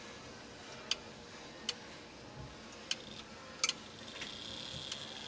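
A Ridgeway triple-chime grandfather clock's mechanical movement ticking, with single sharp ticks roughly once a second.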